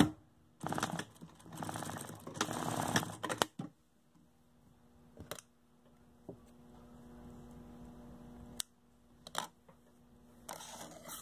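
Hands handling fabric and tools on a tabletop. There are two bursts of rapid clicking and rustling in the first few seconds, then a few isolated sharp clicks.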